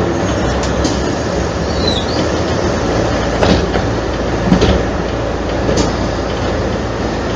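Mercedes-Benz O345 city bus's diesel engine idling at a standstill, with three short sharp clicks in the middle.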